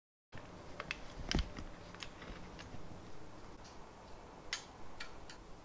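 Small metal clicks and taps of hardware being handled and fitted onto an aluminium V-slot extrusion frame, a few scattered ones with a louder knock about a second and a half in.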